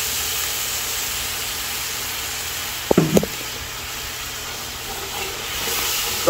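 Curry sizzling steadily in a hot pot over a gas burner, a hiss of frying. A brief voice sound about halfway through.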